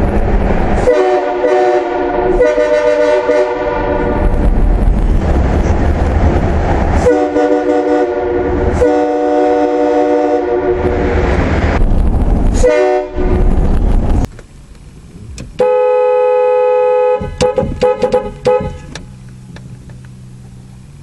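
Loud multi-tone air horn sounding a chord in several blasts of a few seconds each over a low rumble. Then one cleaner long blast, followed by rapid stuttering bursts.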